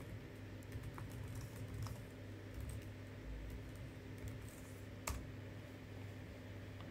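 Faint typing on a computer keyboard: a string of light key clicks, with one louder click about five seconds in.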